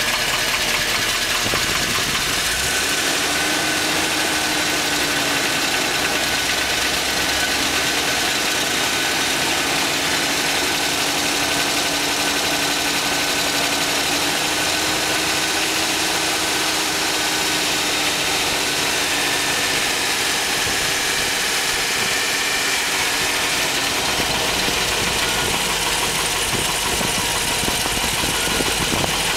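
A 2010 Hummer H3 Alpha's LH9 5.3-litre all-aluminium V8 idling warm with a steady, rapid knock that GM diagnosed as piston slap. The owner says it sounds like a diesel or a rod knock.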